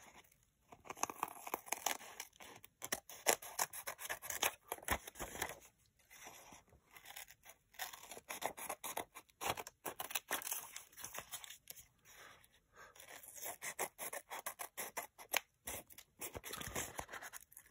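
Scissors cutting through a brown kraft paper bag layered with a glued book page: a long run of uneven snipping strokes with short pauses between cuts. The blades are dull and want sharpening.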